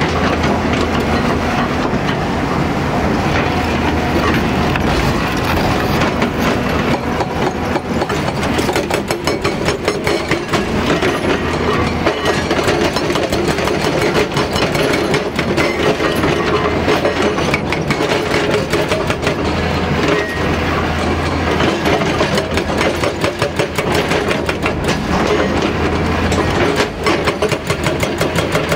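Hyundai HDB230 hydraulic rock breaker hammering: a rapid, even run of blows, over the steady running of the excavator's diesel engine.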